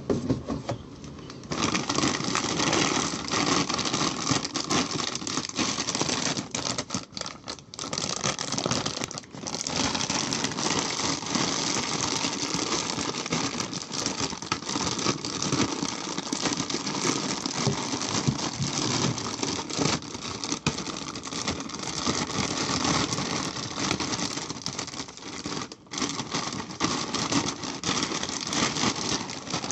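Packaging being handled and opened: crinkling, rustling and tearing, with many small clicks and rattles, pausing briefly a few times.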